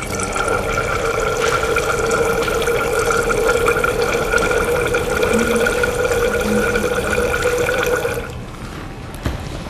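Aqueous ammonia poured steadily from a plastic bottle into a tall glass cylinder, the liquid splashing with a steady hollow tone from the cylinder. The pour stops about eight seconds in.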